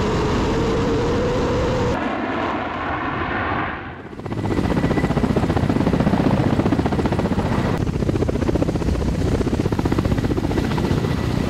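Su-35S fighter jet's engines running with a steady whine for about four seconds, then the fast, steady rotor beat of Ka-52 attack helicopters with their coaxial rotors.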